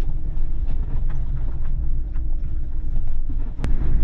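Ram ProMaster camper van driving slowly on a dirt road: a steady low rumble of engine and tyres with faint scattered knocks and rattles, and one sharp click a little before the end.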